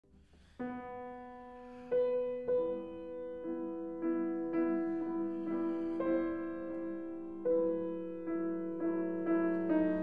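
Slow, gentle piano music: single notes and soft chords struck one after another, each left to ring.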